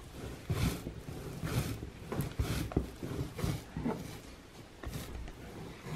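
Whole-wheat bread dough being kneaded by hand on a wooden table: soft thuds and pushes as the dough is pressed and folded, about once a second.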